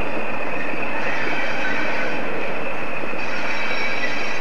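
A pair of British Rail Class 20 diesel locomotives, with English Electric eight-cylinder engines, running slowly along the track. The engines drone steadily, with a high-pitched whine on top.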